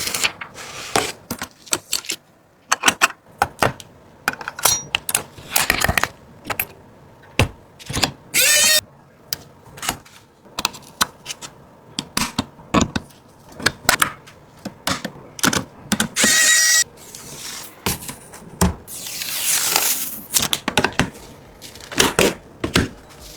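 Computer parts being handled and fitted by hand: an irregular run of sharp clicks, taps and clacks of plastic and metal, with a few longer scraping or rustling noises.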